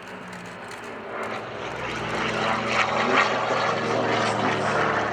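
Twin-engine piston warbird flying past with a propeller-engine drone. The drone grows louder over the first few seconds, then holds steady.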